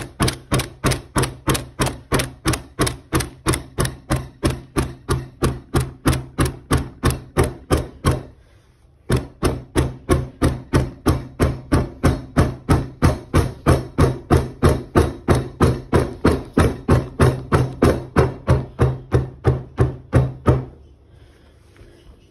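Hammer blows along a new rubber pool-table cushion to seat it firmly on its glued timber rail: steady knocks about three a second. They pause for about a second a third of the way in, then carry on and stop shortly before the end.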